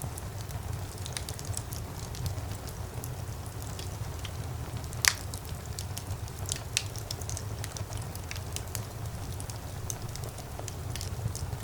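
Wood fire crackling in a fireplace: scattered sharp pops and snaps over a steady low rumble of the flames, with one louder pop about five seconds in.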